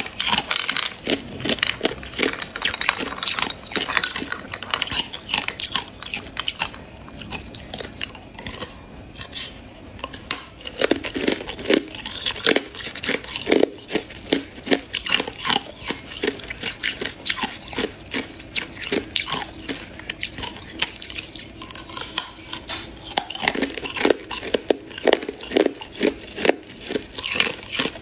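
Hard clear ice being bitten and crunched between the teeth close to the microphone: a rapid run of sharp cracks and crunches, with a short pause about eight seconds in.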